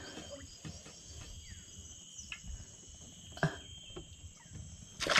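Insects chirring steadily in the background, with a couple of sharp clicks in the middle. A sudden burst of noise comes in near the end.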